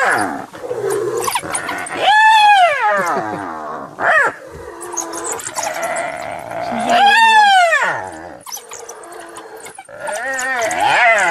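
African wild dogs and a spotted hyena squabbling over a kill: high-pitched twittering and squealing calls, with two long squeals that rise and then fall, about two and seven seconds in.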